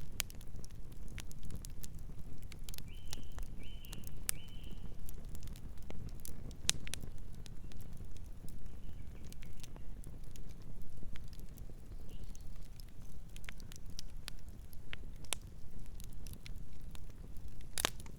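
Campfire crackling, with irregular sharp pops over a steady low rush of flame; the loudest pop comes near the end. Three short high chirps sound about three seconds in.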